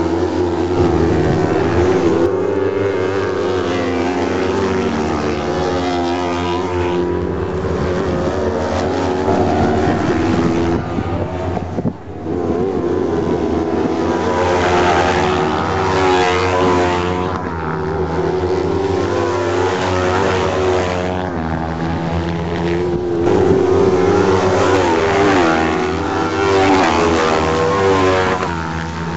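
Several autocross sprint car buggies racing past, their engines revving high and rising and falling in pitch as they accelerate and pass. The sound drops briefly about twelve seconds in.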